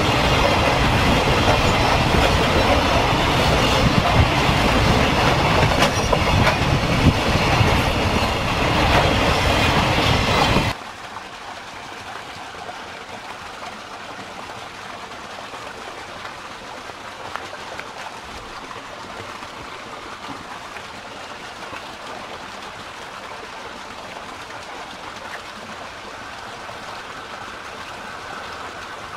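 Freight train of container wagons rolling past close by, a steady loud rumble and clatter of wheels on rail with a few sharp clicks, cut off abruptly about a third of the way through. After that only a much quieter, steady hiss.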